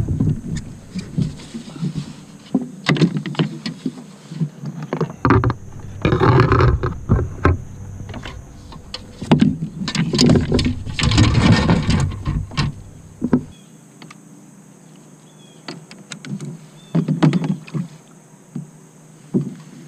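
Knocks and clatter of a plastic fish-measuring board and other gear being handled and set down against a plastic fishing kayak, with two longer rushing noises near the middle. It grows quieter after about two-thirds of the way through, with only a few scattered knocks.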